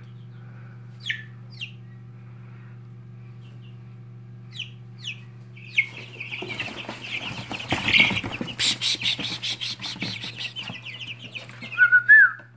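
Young chicken chicks peeping: a few short, falling peeps over a steady low hum, then from about six seconds in many chicks peeping at once with rustling and scratching in the brooder bedding.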